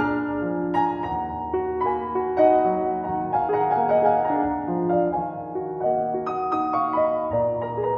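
Background music on a piano-like keyboard: a slow melody of held notes over lower bass notes.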